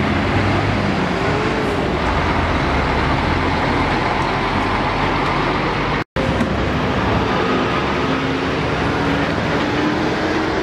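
Roadside traffic noise with heavy-vehicle engines running steadily; one engine note rises slowly near the end.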